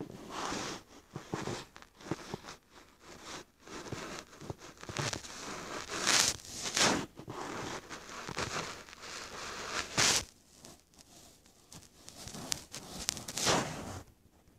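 Irregular rustling and crackling close to the microphone, with a few sharper, louder bursts.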